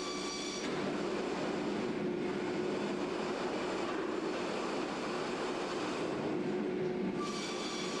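Circular sawmill line running with a softwood log being sawn. About a second in, the saw's steady whine gives way to a louder, rougher sawing noise as the blades cut. The whine returns shortly before the end as the cut finishes.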